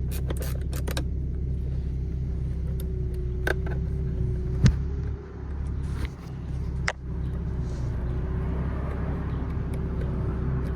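A rapid run of ratchet clicks in the first second as a paddle-shifter mounting bolt is turned, then a few single clicks and knocks. Under it all is a steady low hum from the car.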